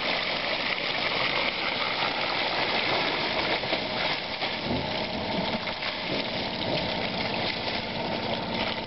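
Water from a newly drilled well gushing out of a PVC pipe and splashing into a metal trough, a steady rush, with a motor running steadily underneath.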